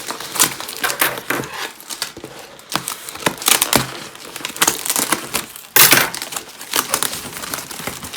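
Packing material in a parcel box crinkling and rustling in irregular crackles as it is handled and pulled out, with one louder, longer rustle about six seconds in.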